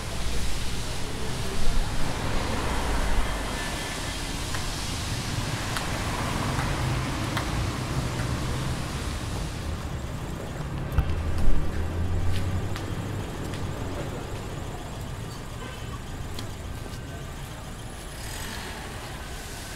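Outdoor traffic noise: a steady hum of road traffic, with louder low rumbles about two seconds in and again around eleven seconds in.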